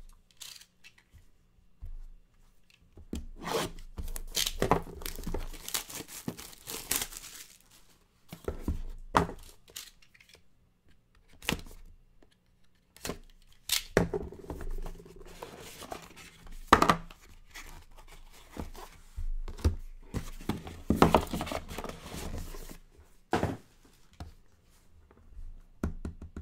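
Packaging of a trading card box being torn and crinkled as the box is opened, in several rustling bursts with sharp clicks and taps of the box and plastic top-loaders being handled.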